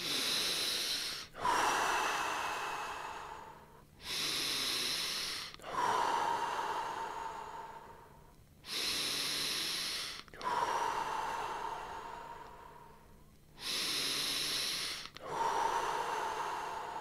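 A person taking four deep, audible breaths in a steady rhythm as part of a Tummo-style breathing round. Each breath is a forceful in-breath of about a second and a half, followed by a longer breath out that fades away over two to three seconds.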